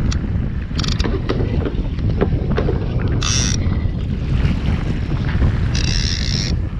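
Steady wind buffeting the microphone over sea water sloshing against a fishing kayak, with three short high hissing bursts about one, three and six seconds in.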